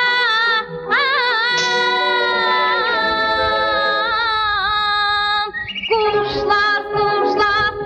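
Background music: a high voice singing long, held, wavering notes, with a short break about five and a half seconds in before the next phrase.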